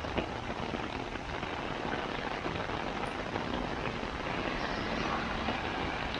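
Heavy downpour of rain, a steady dense hiss with many drops ticking, over the sound of road traffic.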